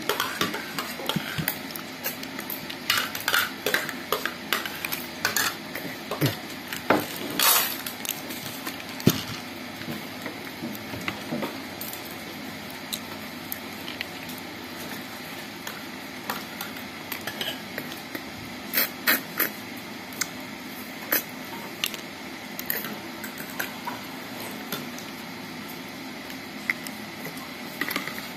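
Irregular clicks and clinks of cooked snail shells knocking against a ceramic plate and each other as they are picked out of the rice by hand. The clicks are denser and louder in two stretches, one in the first third and one about two-thirds of the way through.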